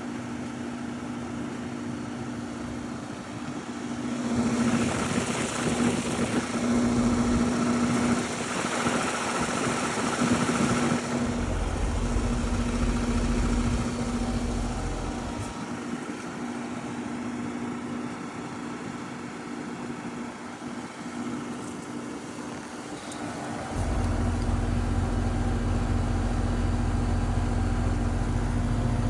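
Lennox Elite central air conditioner running, a steady machine hum of compressor and condenser fan. A louder rush of air swells in from about four seconds in to about eleven, and a low rumble joins near the end.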